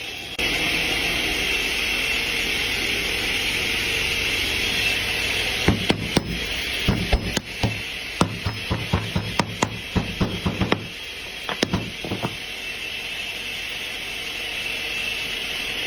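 Hammer blows on wood, a run of irregular sharp knocks several a second lasting about seven seconds, starting a few seconds in, over a steady hiss. The knocks come from fitting wooden tenon joints together.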